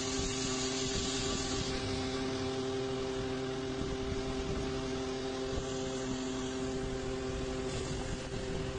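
A steady engine-like hum at a constant pitch over a steady hiss, typical of a vehicle running in flooded traffic.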